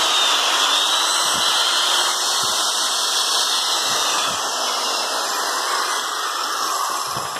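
Old corded 13 mm electric drill, a low-speed model rated about 1100 rpm, running with no load: a steady motor and gear noise with a faint high whine that rises and then falls. It winds down near the end.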